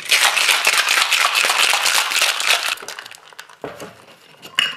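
Ice rattling inside a stainless-steel cocktail shaker as it is shaken, for nearly three seconds. A knock follows, then a few ringing metallic clinks near the end.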